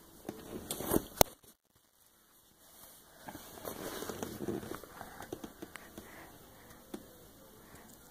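Congested, crackly snoring breaths from a sleeping baby whose nose is blocked by a cold, the longest breath about three to five seconds in. A sharp click comes about a second in, followed by a brief dropout.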